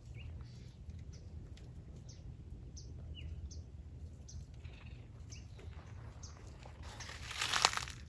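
Small birds chirping, short high calls repeated every half second or so over a low steady rumble, with a brief swell of noise near the end.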